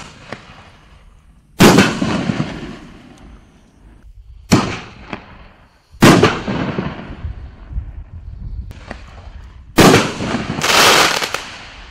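4-inch aerial canister shells firing: four sharp booms a few seconds apart, each with a fading echo, the loudest about a second and a half, six and ten seconds in. A dense spell of crackling follows the last boom.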